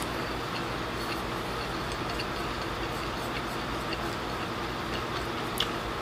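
Chewing with faint small clicks, and a tap of chopsticks against a ceramic rice bowl near the end, over a steady room hum.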